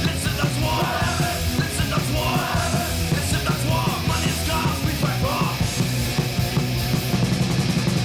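Loud punk or heavy-metal rock music with a fast beat, distorted guitars and shouted vocals.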